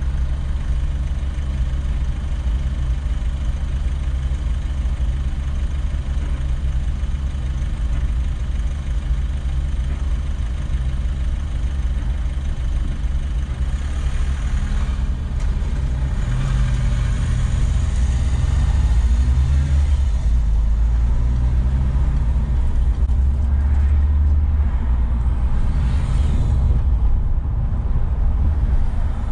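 Car engine idling steadily in stopped city traffic, then pulling away and accelerating about halfway through, with road and traffic noise growing as it gets under way.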